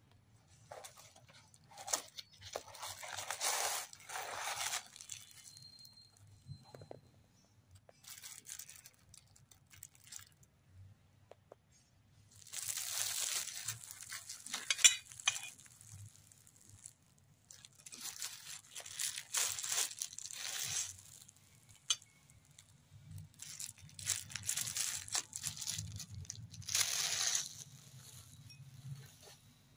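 Cardboard packaging handled and clear plastic wrap crinkled and torn off stainless steel spoon rests, in several separate bursts of rustling. A single sharp click comes about halfway through.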